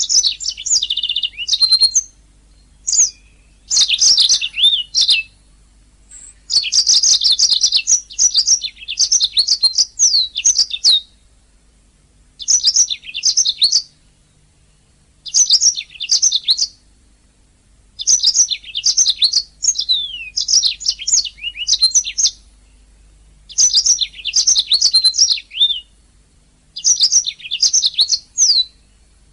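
Domestic canary singing: fast, high-pitched twittering trills in phrases of one to four seconds, broken by short pauses of about a second.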